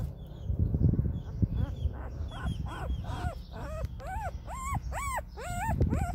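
Ten-day-old Olde English Bulldogge puppy whimpering: short high squeals that rise and fall in pitch come about twice a second from about two seconds in, growing louder. A low rumbling noise comes before them.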